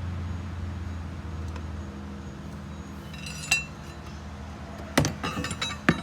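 Steel hand tools clinking and clanking against metal as a wrench and socket work at a seized turbo-to-downpipe nut: one ringing clink about three and a half seconds in, then a quick run of sharp clanks near the end. A low hum sits underneath at the start and fades away.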